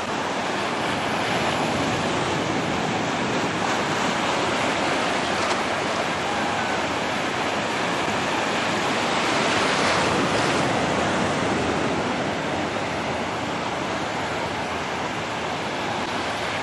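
Ocean surf breaking and washing onto a sandy beach, a steady rushing wash that swells slightly around ten seconds in.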